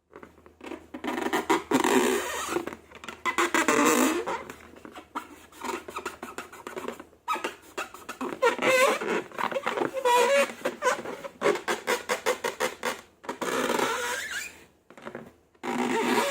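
Slime being squeezed and worked by hand, with wet squelching and quick runs of small popping clicks in bursts.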